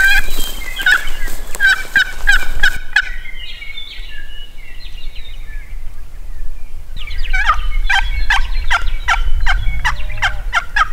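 Wild turkeys calling: a long run of rapid, repeated call notes at the start, fainter calls in the middle, and another long run from about seven seconds in.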